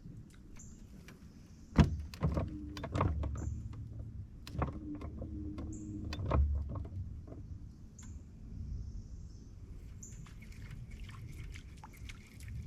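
Knocks, clunks and rustles of fishing gear being handled, the sharpest a single knock about two seconds in, over a low rumble. A short high-pitched call repeats about every two and a half seconds in the background.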